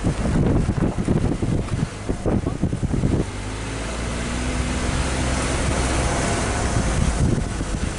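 Car driving slowly, with wind buffeting the microphone in uneven gusts for about the first three seconds, then settling into a steadier low hum of engine and tyres.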